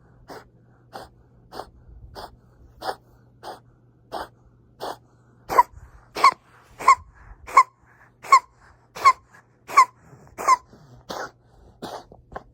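Kitten coughing in a long rhythmic fit, about one and a half coughs a second, growing louder about halfway through, when a whistling, wheezy note comes into each cough. A vet has said such episodes could be feline asthma or heart failure.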